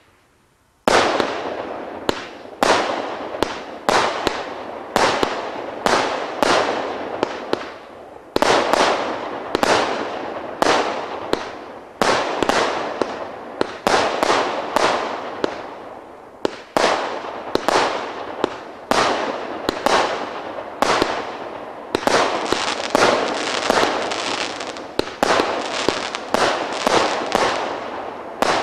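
A multi-shot firework cake firing a rapid string of shells after a moment of quiet, about one to two shots a second, each a sharp report trailing off in a hiss as the next one fires.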